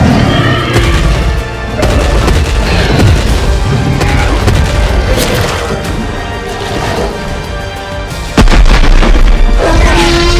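Cinematic action soundtrack: dramatic music layered with heavy booms and dinosaur-roar sound effects from a CGI dinosaur fight. A sudden louder crash comes about eight seconds in, followed by a deep rumble.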